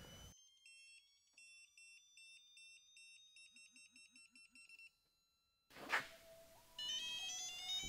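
Faint, rapid electronic beeping, about five short high beeps a second, over thin steady tones. After a brief pause and a soft thump, a louder pattern of rising electronic tones starts near the end.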